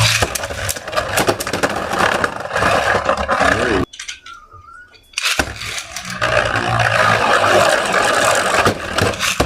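3D-printed Beyblade Burst tops spinning and clashing in a stadium: a dense scraping whir with many sharp clicks of hits. It drops away suddenly for about a second and a half near the middle, then starts up again.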